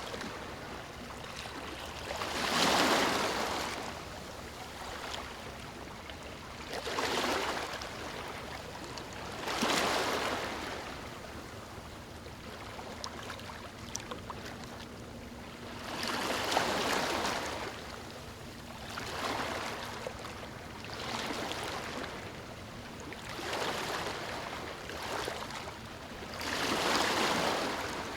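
Ocean waves breaking on a sandy shore: about eight swells of surf rise and fall a few seconds apart over a steady wash of water.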